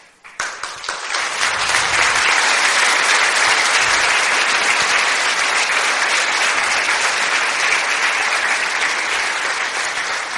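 Audience applauding. The clapping starts about half a second in, swells over the first two seconds, then holds steady.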